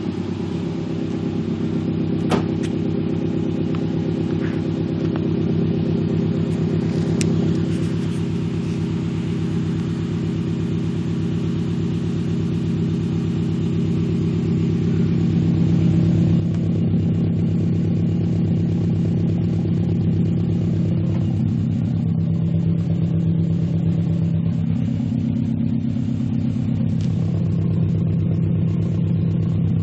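2011 Subaru Impreza WRX STI sedan's turbocharged 2.5-litre flat-four idling steadily through Nameless axle-back muffler deletes, the rest of the exhaust piping stock. A deep, rich exhaust rumble from the tips.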